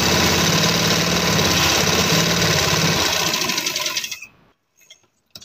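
Sewing machine stitching a seam through cotton fabric, running steadily, then slowing and stopping about four seconds in.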